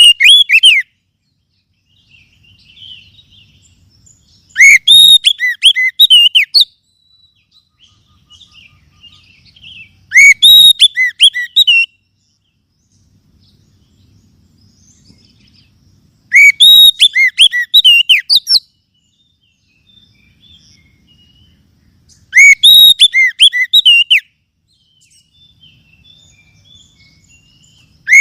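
Oriental magpie-robin (kacer) singing in repeated phrases, each a fast run of sharp whistled notes lasting about two seconds. Four full phrases come about every six seconds with quiet gaps between, and the edges of others fall at the very start and end.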